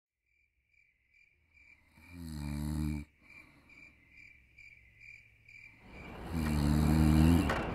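Crickets chirping in a steady pulse, about three chirps a second. Two louder droning rumbles pass over them, one about two seconds in and a stronger one about six seconds in.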